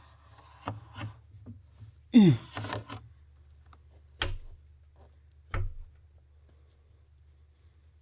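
Scattered short knocks and rubbing of hands and tools working on machinery in a cramped spot, over a steady low hum. A short sound falling in pitch comes a little after two seconds in.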